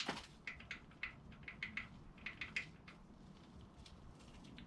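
Faint, irregular small metallic clicks and ticks of engine parts being handled in an opened-up V8's valvetrain, with one sharper click at the start.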